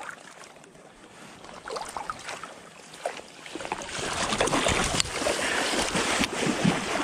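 Splashing water as a landing net is swept through shallow water to scoop up a hooked salmon. The splashing starts loud and sudden about four seconds in, after a few seconds of faint dabbling.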